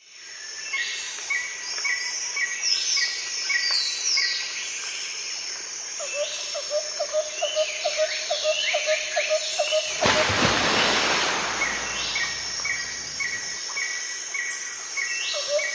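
Birds singing and calling together, with rows of short repeated chirps and a fast run of lower notes. About ten seconds in, a rushing noise sweeps over them for a few seconds, and then the birdsong returns.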